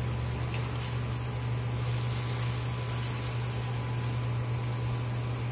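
Water spraying hard from a garden hose onto a pig and the concrete floor of its pen, a steady rushing hiss with a low hum underneath; it cuts off suddenly at the very end.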